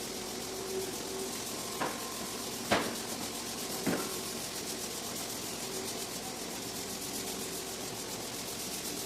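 A machine running steadily, a hum over an even hiss, with three short sharp knocks about two, three and four seconds in, the middle one the loudest.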